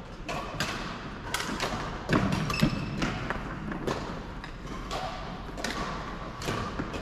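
Badminton being played in a large hall: sharp racket hits on shuttlecocks every half-second to a second, thuds of players' feet on the wooden court floor with a heavier thud about two seconds in, and a few brief shoe squeaks.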